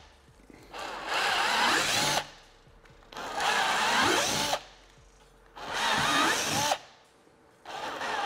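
Cordless drill boring through a plastic trunk lid, opening the holes up to a little over 1/4 inch. There are four short runs of a second or so, each starting with the motor spinning up, and brief pauses between them.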